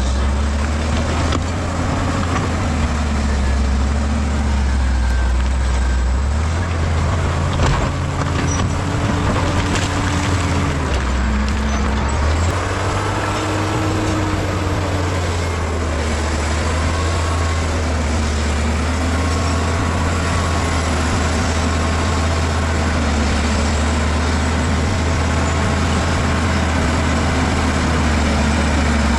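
Bulldozer's diesel engine running steadily under load, its pitch sagging and picking up again as it works.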